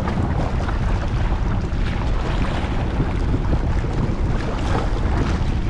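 Wind buffeting the microphone, with small choppy sea waves lapping and splashing against breakwater rocks; a steady, unbroken rush.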